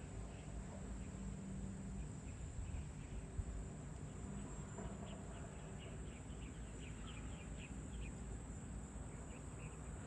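Steady high-pitched insect drone, with a bird's run of quick chirps about five to eight seconds in, over a low background rumble.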